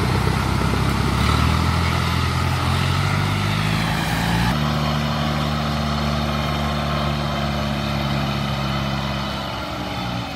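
Diesel engine of a Kubota DC-93 combine harvester running steadily; its pitch shifts suddenly about four and a half seconds in.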